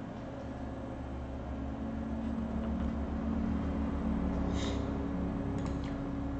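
Steady low background hum of machinery, a little louder in the middle, with a short hiss about four and a half seconds in and a few faint clicks near the end.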